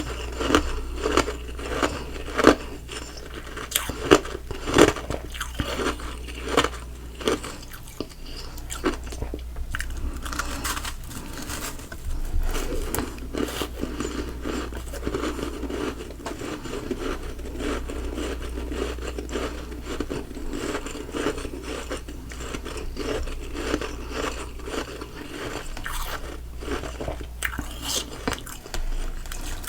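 Ice being bitten and chewed close to the microphone. Sharp single crunches come about once a second for the first several seconds, then give way to denser, steady crunching as the mouthful is chewed.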